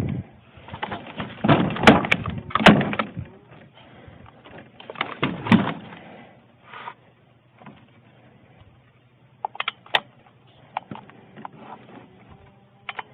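Irregular knocks, clunks and clatter, loudest in the first three seconds and again around five seconds in, followed by scattered sharp clicks.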